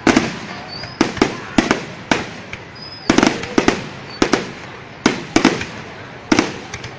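Fireworks display: aerial shells bursting in quick succession, sharp bangs often coming in close pairs about every half second to second, each trailing off in a short echo.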